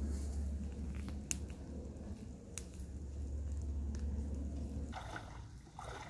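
Small wood campfire crackling, with a few sharp pops over a low steady rumble that stops near the end.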